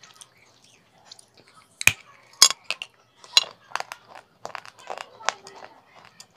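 Baked clay (terracotta pot pieces) being bitten and chewed: an irregular run of sharp, dry crunches starting about two seconds in, the loudest near the start of the run.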